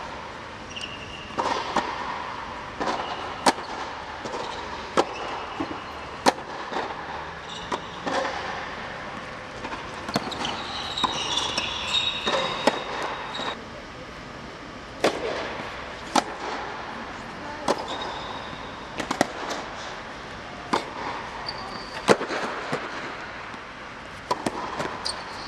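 Tennis ball being struck back and forth by racquets in a rally on an indoor hard court, a sharp pop of ball on strings or ball on court about every second or so, with short squeaks of tennis shoes on the court surface between hits. The rally pauses briefly about halfway through.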